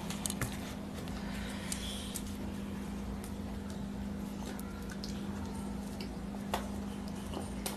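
Faint eating sounds: luchi being torn by hand and chewed, with a few soft mouth clicks, over a steady low hum.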